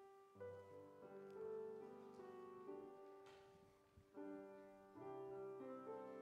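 Soft, slow piano music: held chords that ring on and give way to new ones every second or so.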